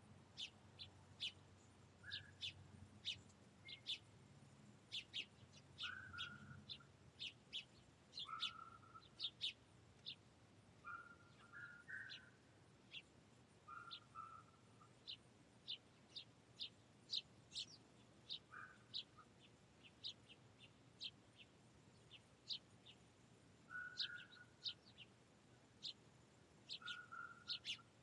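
Finches chirping faintly: many short, high chirps scattered irregularly, with a lower short call every few seconds.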